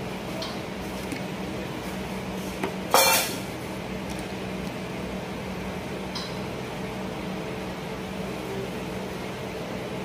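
One sharp clink of a small hard object being knocked or set down about three seconds in, with a few fainter clicks, over a steady low hum.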